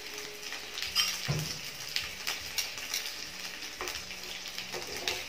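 Whole tilapia sizzling in hot oil in a frying pan, fried until cooked through, with a few sharp clicks of metal tongs against the pan, the loudest about a second in.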